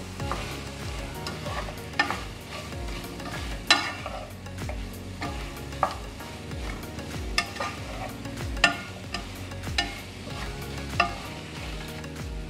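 Marinated chicken pieces sizzling in a nonstick frying pan while a wooden spatula stirs them, scraping the pan. A sharp knock of the spatula against the pan comes every second or two.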